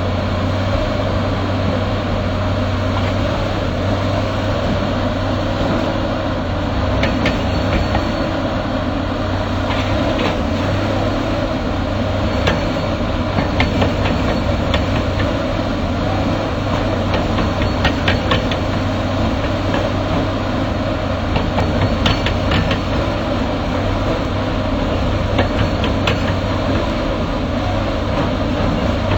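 Excavator engine running steadily, with scattered sharp knocks and clanks coming in irregular clusters.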